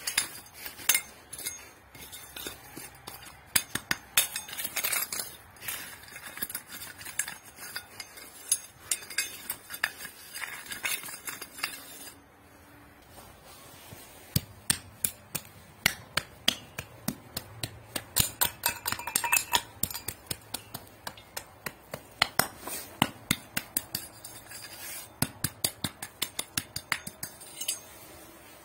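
Small hand trowel scraping and digging into dry stony soil, its blade clinking against the gravel in quick, irregular strikes, with a short lull about twelve seconds in.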